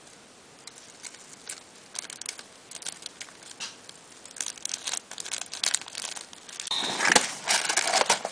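Paper shopping bag rustling and crinkling as hands rummage inside it, with scattered crackles that grow denser and louder near the end as a small boxed item is pulled out.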